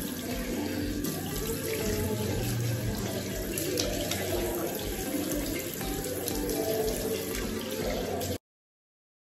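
Water running from a tap into a sink, a steady splashing hiss that cuts off abruptly about eight seconds in.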